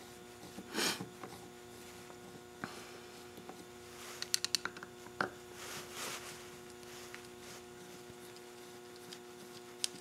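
Small clicks and light handling noises of a screwdriver working the float bowl screws on a motorcycle CV carburetor, with a quick cluster of clicks about four seconds in, over a steady faint electrical hum.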